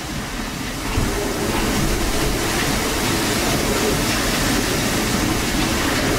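Hurricane-force wind blowing steadily with driving rain, buffeting the microphone, with a brief knock about a second in.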